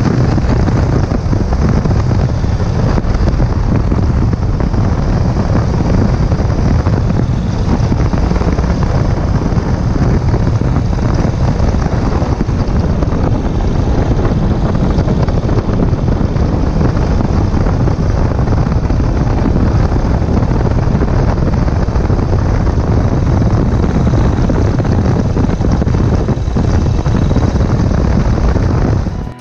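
1951 Indian Chief's flathead V-twin running steadily at cruising speed, mixed with heavy wind rush over the rider's camera microphone.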